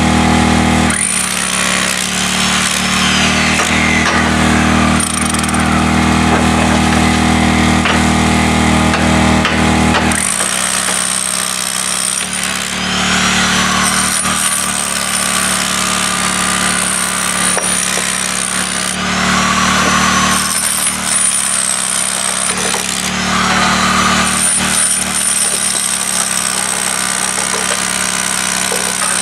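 Corded electric hammer drill hammering into concrete, running almost without a break, with a few brief let-ups in loudness.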